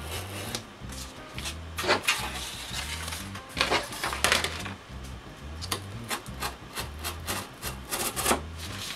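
Background music with a repeating bass line, over a series of irregular rasping strokes of a knife cutting cardboard on a nylon cutting board.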